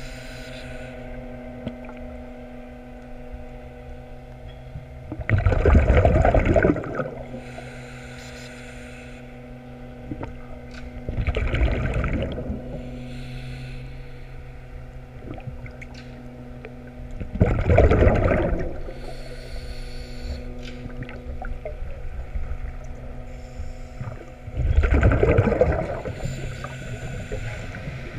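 Underwater breathing of a scuba diver: four bursts of exhaled bubbles from the regulator, about every six seconds, each lasting a second or two. Between them a steady low hum.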